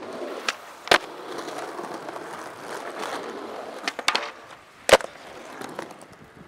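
Skateboard wheels rolling over rough concrete with a few sharp clacks of the board, then the board pops onto a pipe, slides along it and lands with a loud crack about five seconds in, rolling on afterwards.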